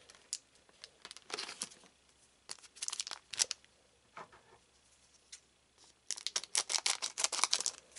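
Foil trading-card booster pack crinkling as it is pulled from the box and handled, with scattered short rustles, then a dense run of crinkling and tearing of the wrapper from about six seconds in.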